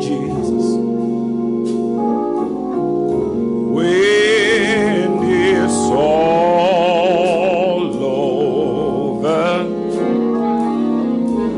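Gospel music: sustained organ chords throughout, with a solo voice singing a wavering, heavily ornamented line from about four seconds in until about nine and a half seconds.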